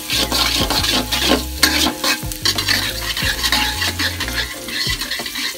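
Chopped garlic sizzling in hot oil in a metal wok while a spatula stirs it, scraping and knocking against the pan many times. This is the sauté stage, cooking the garlic until fragrant.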